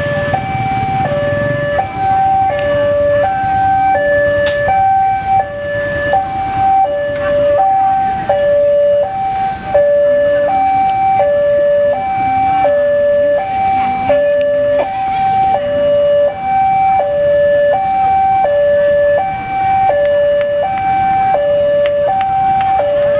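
Railway level-crossing alarm sounding a steady electronic two-tone high-low chime, about one high-low pair a second, warning of an approaching train.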